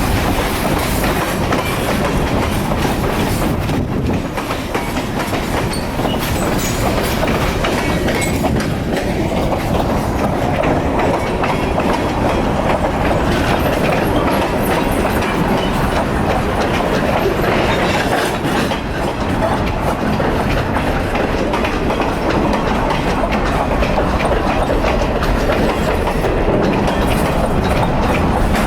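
CN freight train rolling past, its wheels clattering steadily over the rails.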